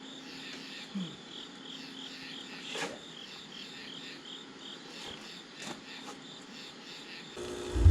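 Crickets chirping steadily, about three chirps a second, with a couple of faint clicks. Near the end a loud, low roar starts suddenly: the propane burner on the reverberatory furnace firing up.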